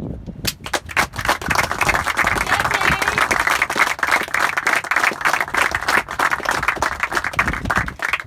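A group of people applauding, many quick hand claps blending together. It starts about half a second in and stops just before the end.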